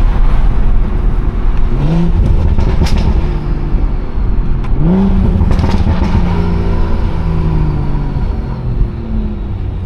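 BMW 340i's turbocharged B58 inline-six with a modified exhaust, accelerating: its note rises in pitch twice, about two and five seconds in, then holds and slowly falls as it cruises. A few sharp cracks are heard around three and six seconds in.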